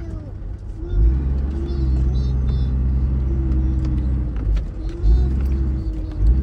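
Off-road vehicle's engine rumbling as it drives along a soft sand track, the engine note rising and falling with the throttle and surging a few times. A few light knocks.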